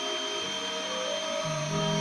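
CNC milling machine cutting a circuit board. The spindle gives a steady high whine, while the stepper motors hum at pitches that jump every second or so as the axes change speed and direction.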